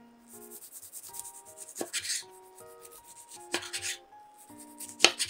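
Chef's knife sawing through a roll of cabbage gimbap wrapped in dried seaweed, on a wooden cutting board: three slices about a second and a half apart. Each is a quick run of rasping strokes that ends in a knock of the blade on the board.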